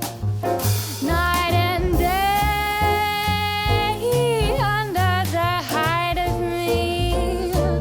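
Female jazz vocalist singing without recognisable words, accompanied by piano, bass and drums. She holds one long note with vibrato about two seconds in, then goes back to shorter, bending phrases.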